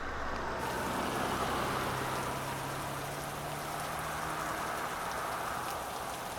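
Steady rushing water noise, cut in abruptly, with a faint low hum underneath.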